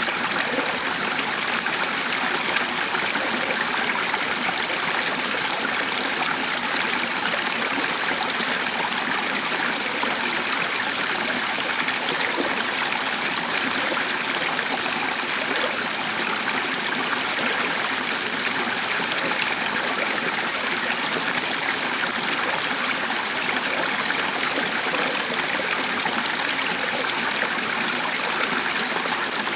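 Running water, like a stream, making a steady, even rush with no breaks.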